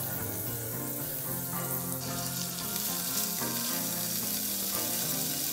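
Sausage rings sizzling in hot oil in a frying pan as they are laid in. The sizzle grows louder about two seconds in, with background music underneath.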